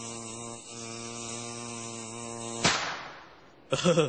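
A steady low hum with a clear pitch, then about two and a half seconds in a firecracker goes off with one sudden bang that fades away within a second.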